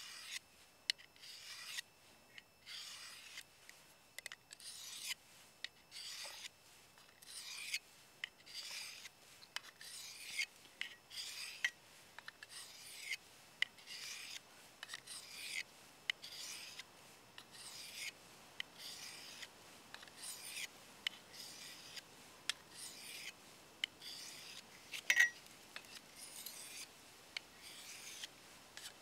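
Steel knife blade being stroked across a folding diamond sharpening plate, a steady series of rasping scrapes at about one stroke a second. A single sharp click stands out about 25 seconds in.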